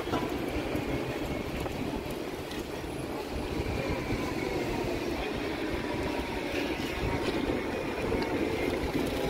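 Steady city-street traffic noise, an even rumble of passing vehicles heard while walking along the pavement.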